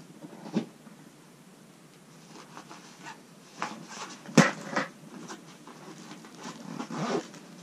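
Scattered soft knocks and rustles, with a cluster of sharper clicks in the middle and one loud sharp knock about four and a half seconds in.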